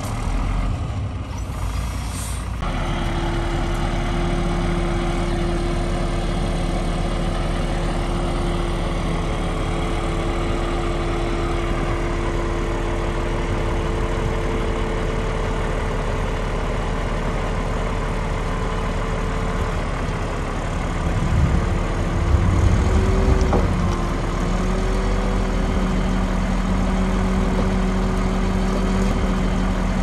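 Heavy diesel engine of earthmoving machinery running steadily, with a louder stretch about three-quarters of the way through in which its pitch dips briefly, as if under load.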